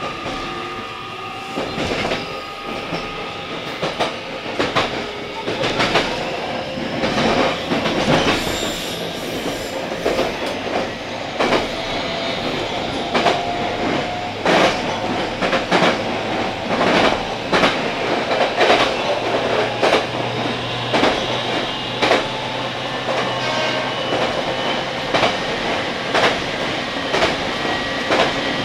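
JR 817 series electric train running and gathering speed, heard from inside the cab: wheels clicking over rail joints, the clicks coming closer together, over a steady running noise with a faint motor whine rising in pitch.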